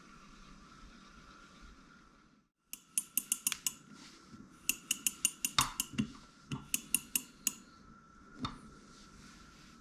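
Shimano Stella SW 30000 spinning reel being worked by hand: clusters of quick, sharp metallic clicks, the bail snapping open and shut, starting a few seconds in, with one last click near the end.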